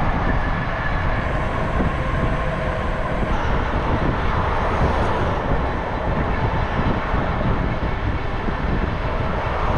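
Steady rumbling road and wind noise from a bicycle ride in traffic, with no distinct events standing out.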